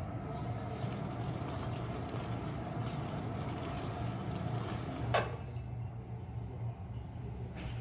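A steady low hum while spaghetti in a cream sauce is stirred in a pan with a silicone spatula. There is a single short, sharp clink about five seconds in.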